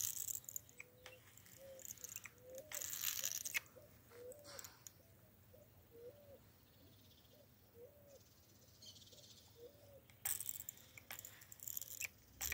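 Baitcasting reel's drag buzzing and clicking in several short bursts as a hooked fish pulls line off the spool. Faint short low notes repeat about once a second in the background.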